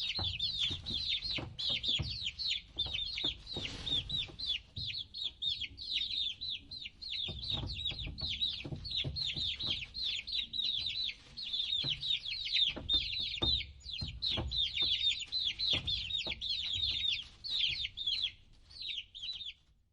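A brood of baby chicks peeping continuously, many high, rapid cheeps overlapping, with soft low thumps and clicks underneath; the peeping thins out near the end.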